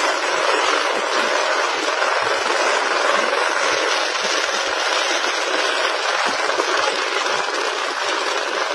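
A steady, dense roar of noise, mostly in the upper range, with faint irregular low thuds underneath.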